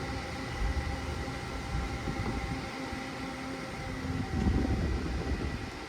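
Crane truck running steadily as it lifts a load: a low engine rumble that swells about half a second in and again around four and a half seconds, under a steady whine.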